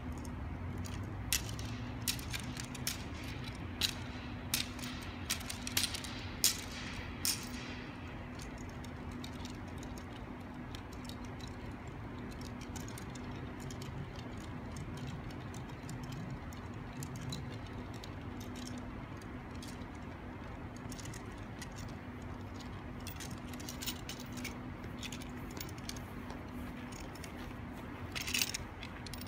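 Steady low hum of ventilation fans in a large fabric-domed hall, with scattered light clicks and taps through the first several seconds and a cluster of clicks near the end.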